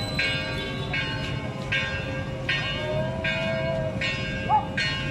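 A bell rung at a steady pace, about seven strokes in five seconds. Each stroke rings on with a bright metallic tone before the next, over a low background murmur.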